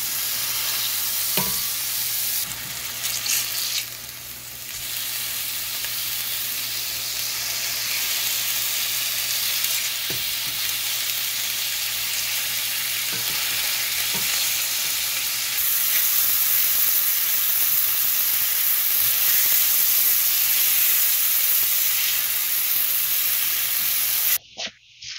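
Hash browns frying in a skillet: a steady sizzle with a few faint clicks, cutting off abruptly near the end.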